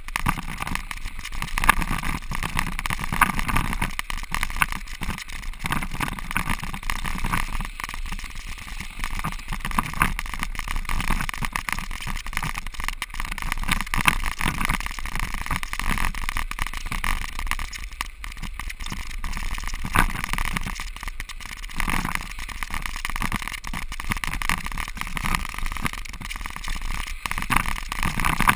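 Snow bike's tyres rolling over crusty lake ice, a steady rushing noise full of small clicks and rattles from the bike as it rides.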